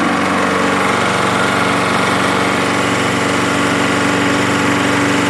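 Push lawn mower's small single-cylinder engine running steadily on fuel vapor drawn through a homemade hose-and-can feed, in place of its worn-out carburetor.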